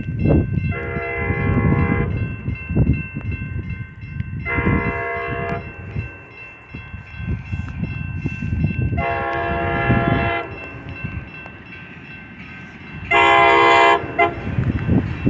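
Approaching Amtrak train's locomotive horn sounding four separate blasts of about a second each for the grade crossing, the last the loudest as the train nears. A grade crossing warning bell rings steadily underneath, with a low rumble.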